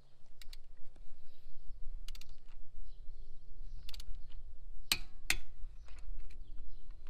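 Irregular clicks and clinks of metal tools and parts being handled, with a pair of sharper knocks about five seconds in.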